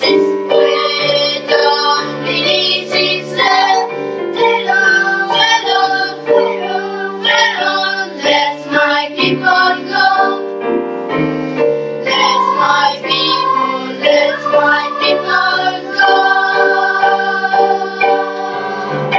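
Children's choir singing a Christmas song in harmony with piano accompaniment.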